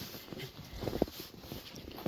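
Footsteps on packed snow, a walker's irregular steps a few to the second.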